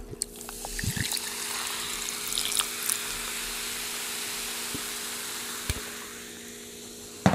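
Carbonated Sprite Zero poured from a can into a glass of ice, hissing and fizzing as the glass fills, with small ticks from the ice. The fizz fades out near the end, just after a single light knock.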